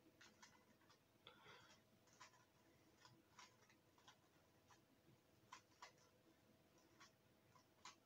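Stickerless plastic 3x3 Rubik's cube turned one-handed: faint, irregular clicks and clacks of the layers turning, a dozen or more, some coming in quick little runs.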